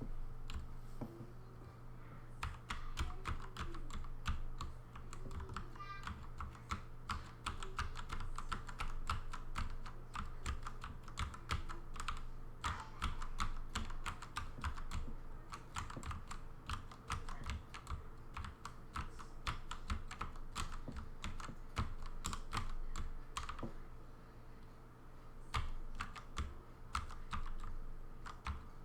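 Redragon K552 mechanical keyboard with 3D-printed flat keycaps and light 15 g springs, pressed in fast chords for machine-style stenography: a dense, uneven clatter of keystrokes, thinning briefly about three-quarters of the way through.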